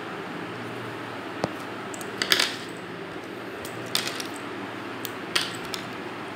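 Several short sharp clicks and taps from a cardboard tube and a pencil being handled and turned by hand, the loudest a little over two seconds in, over a steady background hiss.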